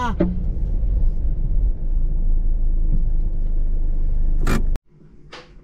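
Low, steady rumble of a car, with a sharp knock near the end, then it cuts off suddenly.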